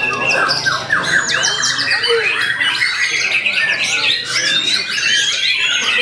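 White-rumped shama singing without a break: a fast, dense run of varied whistles, sweeping notes and rapid repeated trills.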